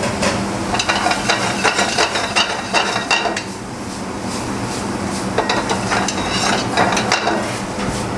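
Mixed vegetables sizzling in a steel frying pan on a gas burner, with a metal serving spoon clanking and scraping against the pan as they are stirred and tossed.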